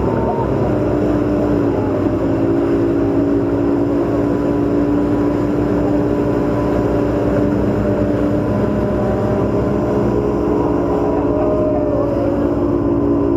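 Tour motorboat's engines running steadily under way, a loud, even drone with a slight shift in pitch a few seconds in, over the rush of water and wind.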